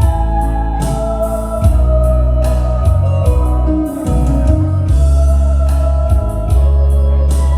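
Instrumental accompaniment music: a sustained, organ-like keyboard melody over a steady, heavy bass line.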